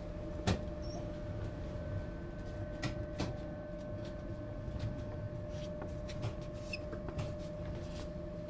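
Duewag M6D tram at a standstill, its electrical equipment giving a steady hum over a low rumble. Scattered clicks and knocks come through it, the sharpest about half a second in.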